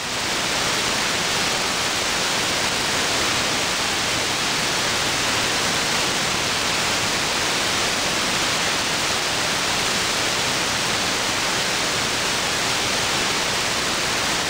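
Steady static hiss from an SDRplay RSP1 software-defined radio receiving in AM on an aircraft-band air traffic control frequency, with no transmission on the channel: dead air between transmissions.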